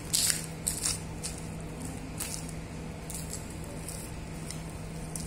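Boning knife slicing along the seam of a hanging veal leg, separating the eye of round from the topside in light strokes: a string of short, soft swishes and wet squelches. A steady low hum runs underneath.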